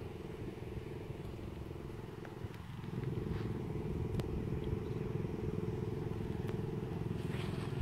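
An engine running steadily: a droning hum with low rumble that gets a little louder about three seconds in.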